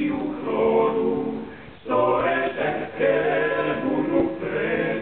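Male vocal ensemble singing a cappella in harmony, with a short break in the phrase about two seconds in before the voices come back in.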